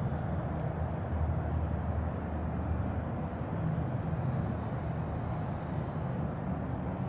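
Steady low rumble of distant traffic.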